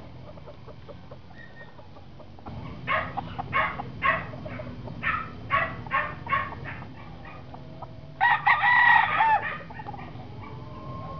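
Rooster calls: a run of about ten short clucks, then one short crow about eight seconds in, the loudest sound here.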